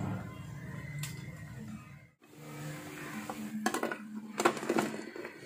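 Crisp batter-fried chicken pieces clattering out of a wire spider strainer onto a plate in two quick bursts of knocks near the end, after the strainer is lifted from bubbling frying oil. A steady low hum runs underneath.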